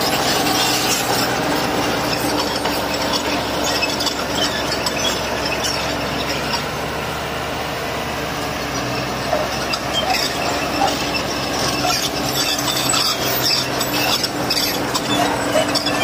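Old Komatsu bulldozer working: its diesel engine runs steadily under load. Metallic squeals and scraping cut in now and then, more often in the second half.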